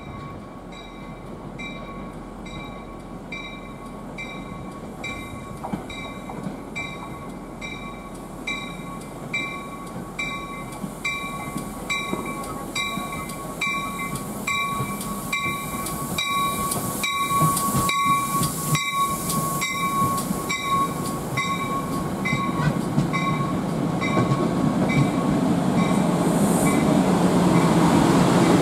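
Railroad grade-crossing bell ringing about one and a half strokes a second, fading out near the end, while an approaching train's rumble grows steadily louder.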